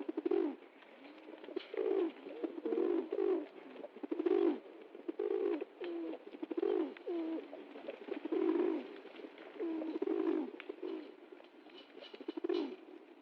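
Pigeon cooing: a run of low coos that bend in pitch, repeated every half second to a second with short gaps.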